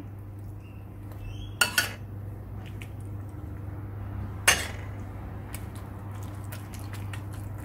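Metal spoon clinking against a metal baking pan as melted butter is spooned over layered dough: two quick clinks a little under two seconds in and a sharper one past four seconds, then faint light taps. A steady low hum runs underneath.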